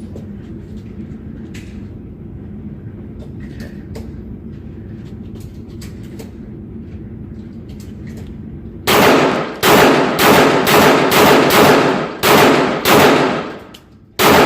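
Pistol firing rapid fire with aluminum-cased ammunition: a quick string of about nine shots starting about nine seconds in, a brief pause, then one more shot near the end. Before the shooting there is only a steady low background noise with a few faint clicks.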